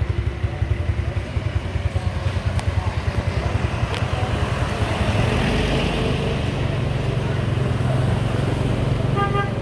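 Small motorbike engine running close by while riding along a street. Its exhaust pulses evenly at first, then settles into steadier, slightly louder running about halfway through as it picks up speed. A short pitched beep sounds near the end.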